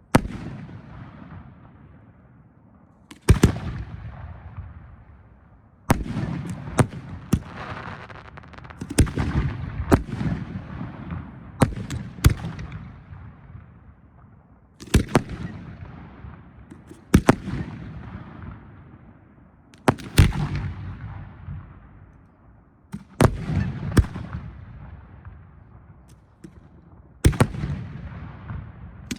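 Professional 1.3G aerial firework shells going off in a show: sharp loud bangs every two to four seconds, several in quick clusters of two or three, each followed by a long rolling rumble that fades away.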